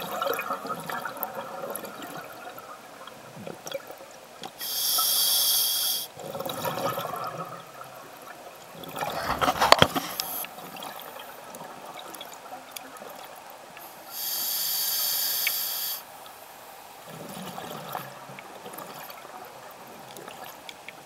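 Scuba diver breathing through a regulator underwater, heard from an underwater camera: two long exhalations of rushing bubbles about ten seconds apart, each followed by a softer inhaled hiss from the regulator. A louder burst of bubbling clatter comes about nine seconds in.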